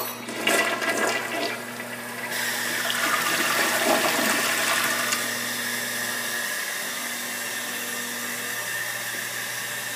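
Kohler Wellworth tank toilet flushing: water splashes and swirls into the bowl for the first couple of seconds, then a louder rush as the bowl empties. About five seconds in it settles into a steady hiss as the tank refills.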